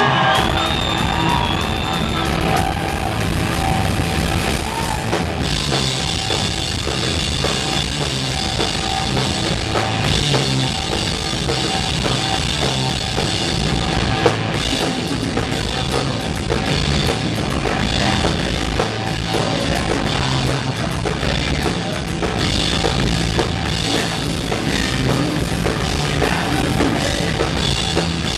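Live rock band playing loud and steady: electric bass guitar and drum kit driving the song.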